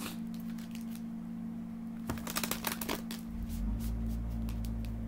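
A deck of tarot cards being shuffled by hand: quick, crisp card flicks, scattered at first and densest a little after two seconds in.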